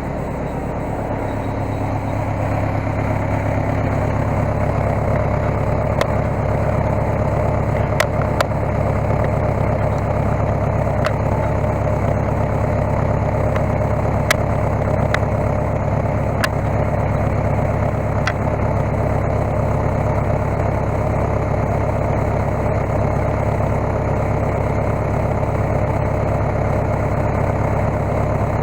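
Case skid steer's diesel engine running steadily, picking up a little about two seconds in, with a few short sharp clicks or knocks over it.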